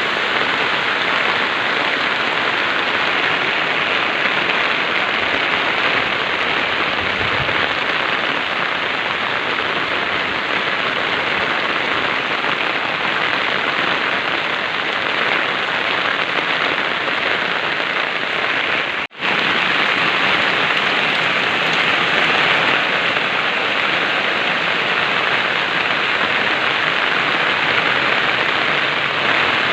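Heavy rain falling steadily, a dense even hiss of drops that cuts out for an instant about two-thirds of the way through.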